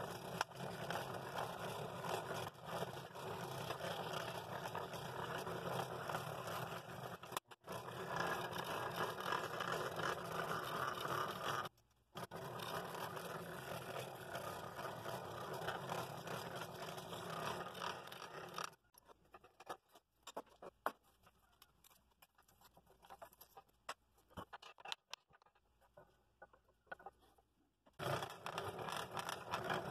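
Scroll saw running, its reciprocating blade cutting a compound cut through a thick poplar block. About two-thirds of the way in the saw goes quiet for roughly nine seconds, leaving only a few light clicks and knocks, then it starts cutting again near the end.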